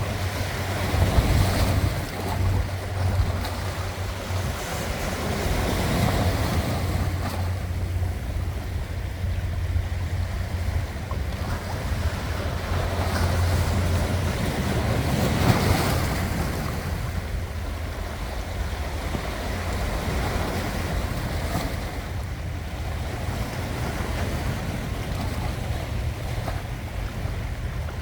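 Sea waves washing and breaking on the shore, the surf hiss swelling and falling back several times, loudest about a second in and around the middle. A steady low rumble of wind runs underneath.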